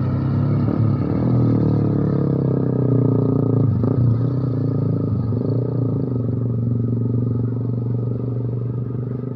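Bus engine running steadily, a low even drone with little change in pitch.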